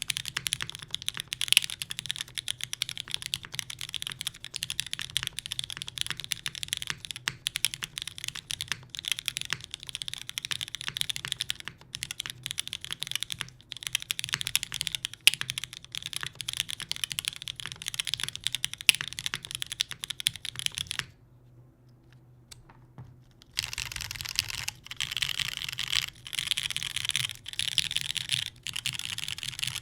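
Typing on a TGR Jane v2 mechanical keyboard with West German vintage Cherry MX Black linear switches on a carbon fibre plate and GMK keycaps: a steady stream of keystroke clacks. About two-thirds of the way through, the typing stops for a couple of seconds, then resumes as rapid key spamming.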